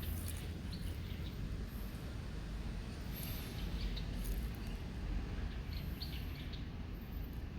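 Outdoor ambience: a steady low wind rumble on the microphone, with faint, scattered bird chirps.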